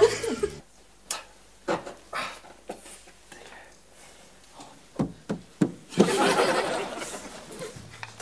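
Scattered knocks and clunks from a mechanic working under a car. About six seconds in comes a louder noisy stretch lasting over a second.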